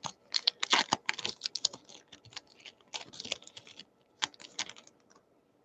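Baseball cards and their wrapper being handled: a run of quick, irregular light clicks and taps that stops about five seconds in.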